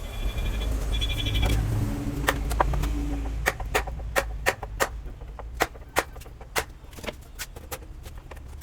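A low rumble with a brief steady drone, then a run of sharp, irregular knocks about two a second: hammering as screws are driven to fix a changeover box onto a board.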